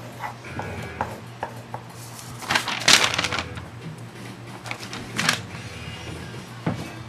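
A sheet of paper rustling and crackling as it is handled and lifted, loudest for about a second near the middle, with a shorter rustle a couple of seconds later and a few small taps, over a low steady hum.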